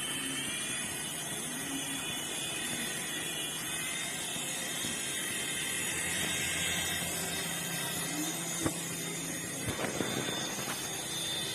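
Remote-control toy helicopter's small electric motors whining, rising in pitch at the start and then holding steady over a hiss of rotor noise, with a few sharp clicks near the end.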